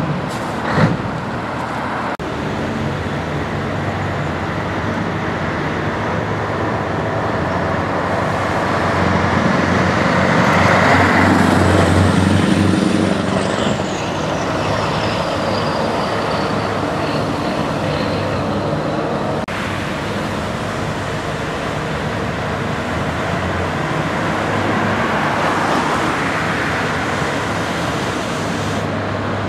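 Scania V8 truck's diesel engine running as the truck pulls away and drives along the road, building to its loudest about a third of the way through. A high whistle then falls slowly in pitch, and the engine comes back up as the truck drives back near the end.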